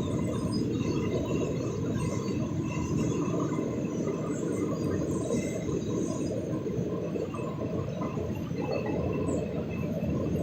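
Steady low rumble of a long freight train rolling past, with no change in level.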